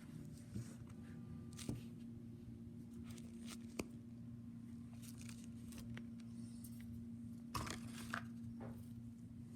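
Scattered small clicks and crinkles, as of fidget toys being handled, over a steady low hum.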